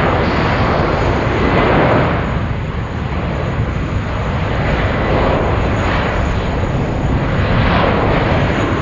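Jet airliner engines, a loud, continuous rumble and roar that swells and eases slightly without stopping.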